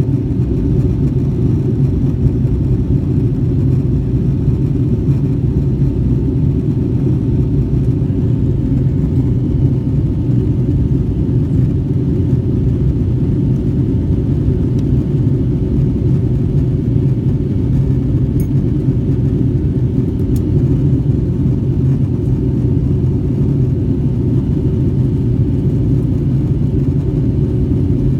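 Steady low rumble of engine and airflow noise inside the cabin of a Boeing 757-200 airliner in flight, with a faint steady hum higher up.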